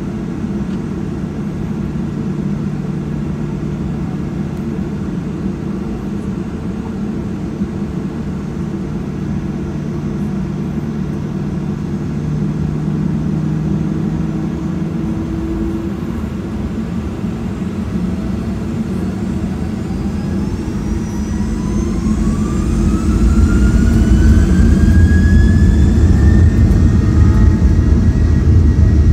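Boeing 737-800's CFM56-7B turbofan engines heard from inside the cabin, from a window seat by the engine. They run steadily at low power for about the first half, then give a rising whine as they spool up to takeoff thrust. The sound grows clearly louder about two-thirds of the way through, as the takeoff roll begins.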